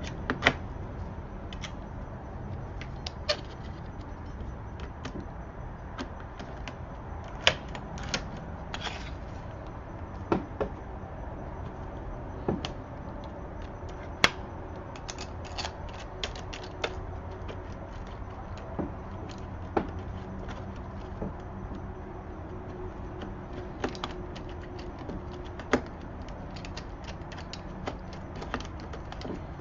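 Irregular sharp clicks and taps of metal deadbolt parts and tools being handled, over a steady low background hum.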